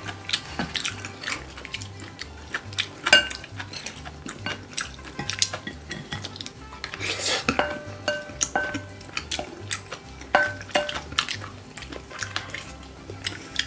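Wooden spoons scraping and clinking against glass bowls as rice is mixed and scooped, in quick irregular clinks, a few leaving a brief ringing tone.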